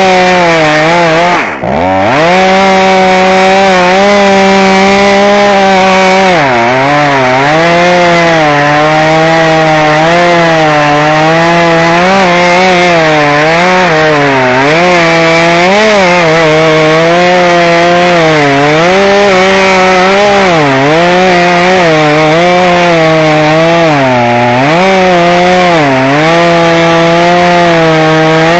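Chainsaw running at full throttle and cutting through wood, its engine pitch dipping and recovering over and over as the chain bites under load. About a second and a half in, the throttle briefly drops and then comes back up.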